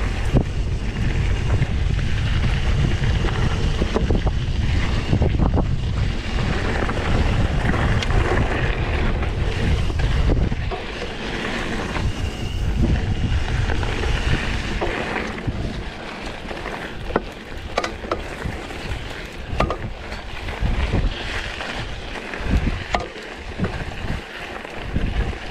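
Wind buffeting the microphone in a heavy low rumble for about the first ten seconds, then easing off. After that come scattered light clicks and knocks.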